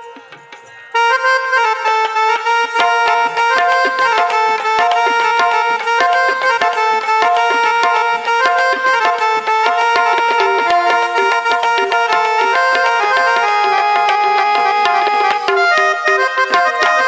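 Music: a melody on an electronic keyboard with a reedy, harmonium-like tone over a fast rhythm of sharp percussive strokes. It comes in about a second in.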